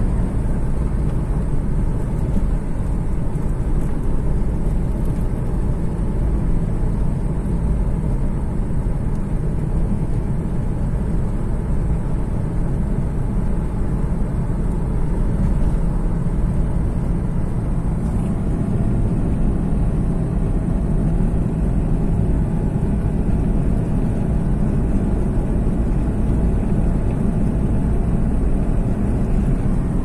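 Steady rumble of a moving car heard from inside its cabin: engine and tyre-on-road noise at an even cruising pace.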